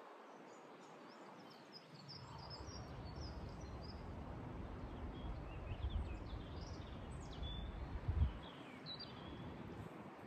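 Small songbirds chirping and twittering with many short calls throughout. A low rumble sets in about two seconds in, is loudest about eight seconds in, and dies away just before the end.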